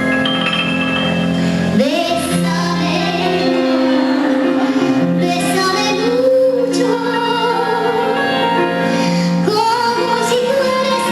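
A song with a woman singing over instrumental accompaniment. Her voice swoops up into a long held note about two seconds in, then carries on with sustained melodic lines.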